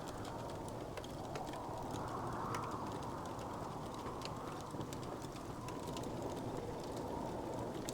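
Wood fire crackling, with frequent small, irregular pops and snaps over a steady low rushing hiss.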